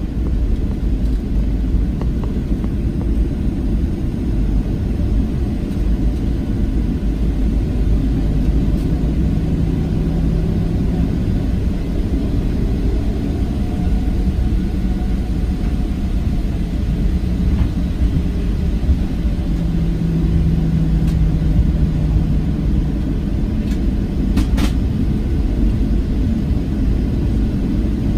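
Cabin noise of a Boeing 737-700 on the ground before takeoff: a steady low rumble from its CFM56-7 engines running at low power, with a low hum that swells twice. A couple of faint clicks come near the end.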